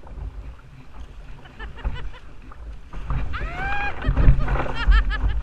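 River water rushing and slapping against a kayak's bow, heard through a bow-mounted action camera as a low, uneven rumble that grows louder in the second half. A rising pitched call comes about three seconds in, followed near the end by a quick run of short chirps.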